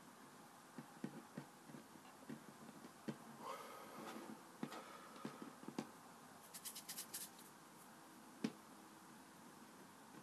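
Faint, scattered taps and soft knocks of fingers pressing and arranging a rope of play dough on a wooden tabletop, with a quick run of small clicks about two-thirds of the way through.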